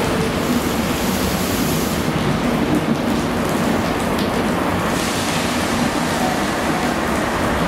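GWR High Speed Train, Mark 3 coaches behind a Class 43 power car, rolling slowly along the platform: a steady, even rumble and hiss of wheels and running gear with no sharp clanks.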